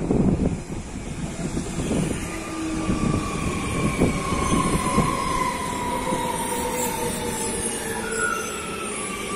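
A train running along the station track with its wheels squealing on the rails: several high steady tones drift slowly down in pitch over the rolling rumble, which is loudest at the start and eases off. A few knocks from the wheels come in the first half.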